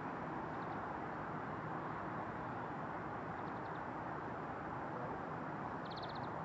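Steady, even outdoor background rush, with a few faint high chirps; the clearest, a quick trill of about seven notes, comes near the end.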